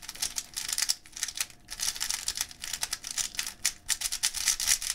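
A YuXin HuangLong M magnetic 3x3 speedcube being turned quickly by hand: a rapid, irregular run of plastic clicks and clacks as its layers turn, with a light magnetic click on each turn.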